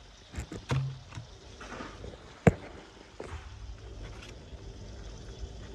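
Handling knocks and clatter, with one sharp knock about two and a half seconds in, as a phone is moved and set down. A steady low hum comes in under them.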